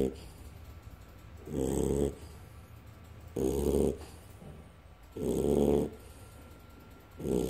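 Snoring in deep sleep: a rhythmic snore roughly every two seconds, each lasting about half a second.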